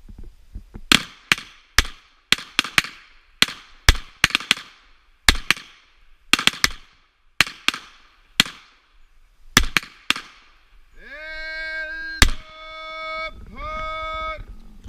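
Pistol shots from several shooters firing at once, about twenty sharp cracks over nine seconds, some in quick pairs and triples. Near the end a horn sounds twice, the signal that ends the firing time, and one last shot goes off during the first blast.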